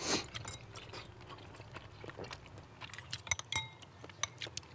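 Scattered small clicks and taps of cutlery, dishes and beer cans, with chewing and sipping, as people eat and drink at a table.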